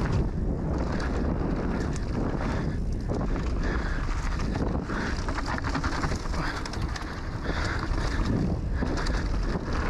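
Heavy wind rush over a handlebar-mounted action camera's microphone as a mountain bike rolls fast down a dirt trail, with constant small clatter and knocks from the bike over the rough ground.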